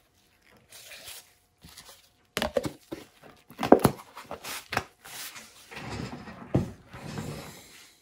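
Handling noise: a string of clicks and knocks with rustling, loudest in the middle, from a plastic paint cup and gloved hands being handled.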